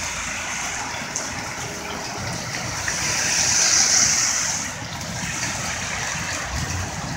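Heavy rain pouring steadily onto a flooded street. About three seconds in, the hiss of a car's tyres on the wet road rises, then fades a second or so later.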